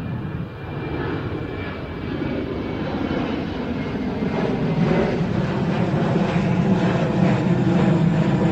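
Twin-engine jet airliner climbing out overhead just after takeoff, its engine noise growing steadily louder.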